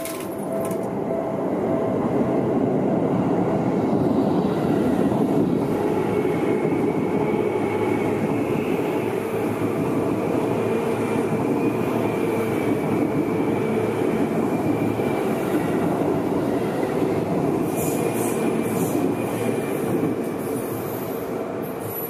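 Yellow Seibu Shinjuku Line electric commuter train running past at close range, with a steady rumble of wheels on rail and a faint high wheel squeal through the middle. The sound swells about a second in and eases off near the end as the last cars clear.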